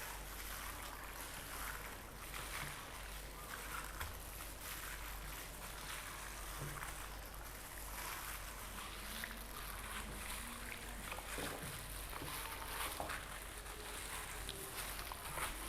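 Wet squelching and small clicks of hands kneading chopped pork ribs in a thick, sticky marinade of soy sauce, oyster sauce and sugar.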